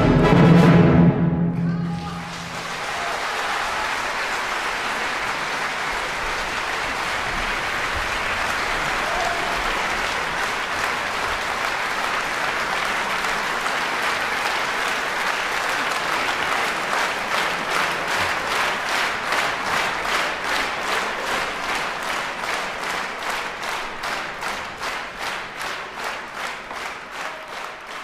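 A full symphony orchestra's final chord cutting off about two seconds in, followed by an audience applauding. In the second half the applause turns into rhythmic clapping in unison, which fades near the end.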